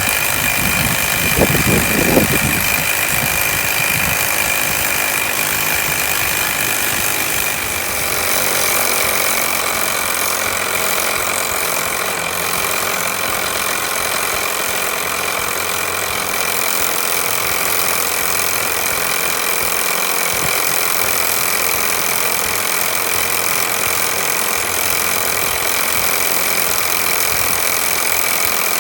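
1960s Mamod toy steam engine running steadily under steam: a continuous mechanical whir with hiss and a steady high whine. A few low knocks come about one to two seconds in, and the sound thins a little about eight seconds in.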